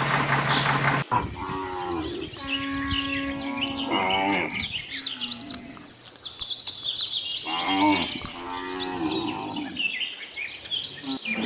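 Cattle mooing: a few long, drawn-out moos, with birds chirping in the background. A short rushing noise opens the sound.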